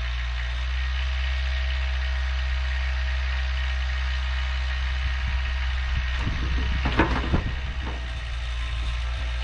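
Four-wheeler (ATV) engine idling steadily, with a brief clatter of knocks about six to seven seconds in.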